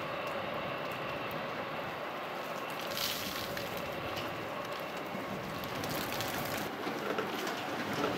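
Steady distant rumble and hiss of electric commuter trains on the line, growing a little louder near the end as the next train approaches.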